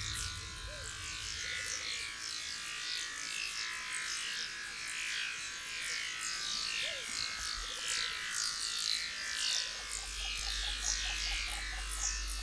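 Rainforest animal chorus: a dense mass of quick, high chirps sliding downward in pitch, with a few fainter lower calls among them. A low steady hum comes in near the end.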